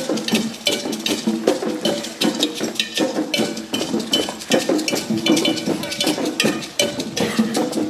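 Rapid, irregular knocking and clinking, several strikes a second, with short ringing metallic tones.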